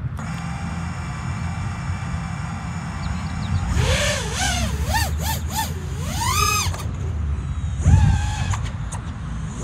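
FPV freestyle quadcopter's brushless motors: first a steady whine as they spin at idle with the drone sitting on the ground, then from about four seconds in a high whine that swoops up and down again and again with the throttle as it takes off and flies. There is a low rumble underneath.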